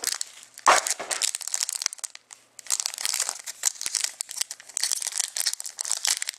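Foil wrapper of a hockey card pack crinkling and being torn open by hand, with a single thump under a second in and a short lull about two seconds in.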